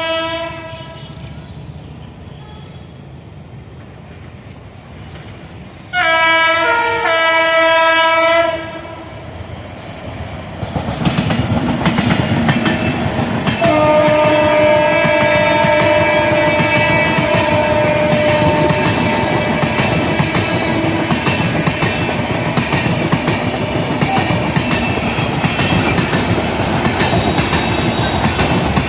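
Indian Railways passenger train: the locomotive horn sounds briefly, then in a loud blast of about two and a half seconds around six seconds in. From about eleven seconds the train's rumble and the wheels clattering over rail joints grow loud, with a long horn blast held for about seven seconds while the coaches run past.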